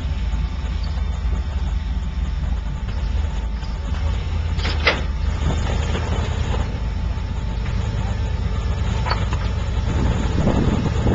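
Rock crawler's engine running with a steady low rumble as the 4x4 climbs a rock ledge, with two sharp knocks about five and nine seconds in.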